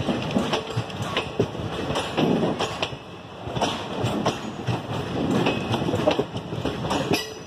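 Indian Railways passenger coaches rolling past close by, their wheels clattering and knocking over the rail joints in an uneven run of clacks over a steady rumble.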